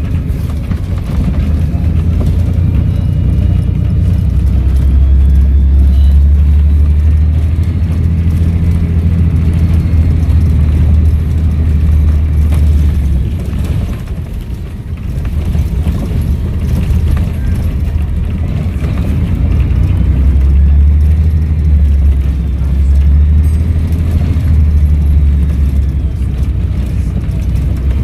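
Volvo B7RLE bus's turbodiesel engine running under load with a Voith automatic gearbox, a deep drone that builds up twice and eases off in the middle. A faint turbo whistle rises and falls above it while the engine pulls.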